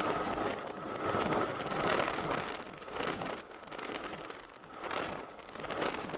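Wind rushing and crackling over an action camera's microphone on a moving motorcycle, mixed with road and engine noise. The loudness swells and dips every second or so.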